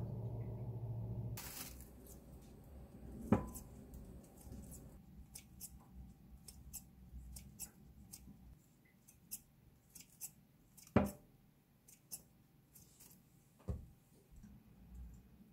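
Kitchen scissors snipping slices of white bread into small cubes: a run of soft, irregular snips, with two louder knocks among them, a few seconds in and again about eleven seconds in. A steady low hum runs through the first second and a half and then stops.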